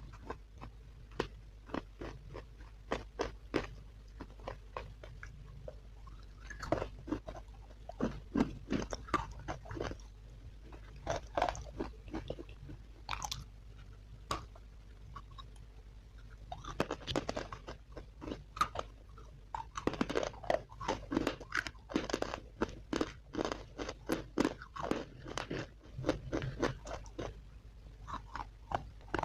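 A person biting and chewing hard sticks of chalk and slate pencil close to the microphone: clusters of sharp, crisp crunches separated by brief quieter pauses.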